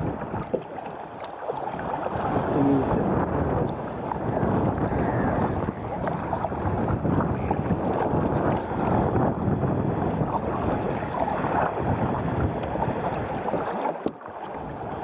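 Sea kayak under way: water splashing and lapping around the paddle and hull, with wind buffeting the microphone throughout.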